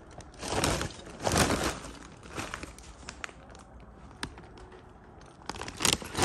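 Short rustling and shuffling noises with scattered light clicks and taps, like items being handled and moved about.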